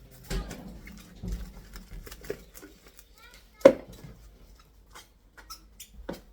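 Kitchen handling noises: scattered light clicks, rustles and knocks as a container and its cover are handled, with one sharper knock about three and a half seconds in.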